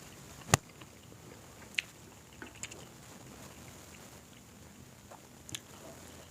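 Close-up eating sounds: a few sharp, brief clicks and crunches of biting and chewing food, the loudest about half a second in.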